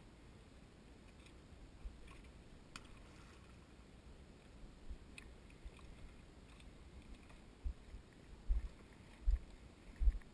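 Faint low thumps, roughly one every three quarters of a second in the second half, with a few light clicks earlier: handling noise on the camera while a spinning rod's lure is reeled in.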